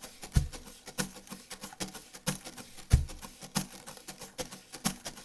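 Cajon played with brushes: quick, crisp brush strokes with two deep bass hits about two and a half seconds apart. It is picked up by a small cardioid microphone built into an old shotgun shell.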